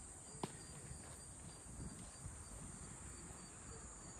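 Steady high-pitched insect buzz, with a low rumble underneath and one sharp click about half a second in.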